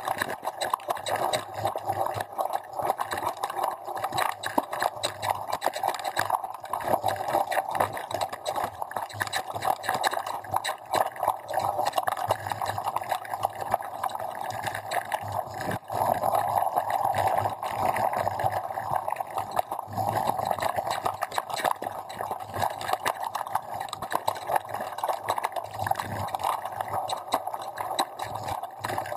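Mountain bike descending a rough dirt downhill trail: a continuous dense clatter and rattle of the bike and its parts over the bumpy ground, with tyre and wind noise.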